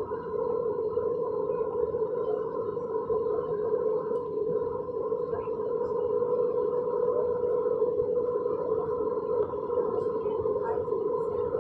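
Airbus A320 cabin noise: the engines make a steady hum with one constant mid-pitched tone and a fainter higher one above it, over an even rushing noise.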